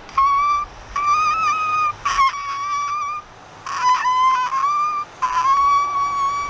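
A man's high, squeaky voice used in place of words: five drawn-out squeals at a nearly steady pitch, each a second or so long with short breaks, standing in for the word 'What'.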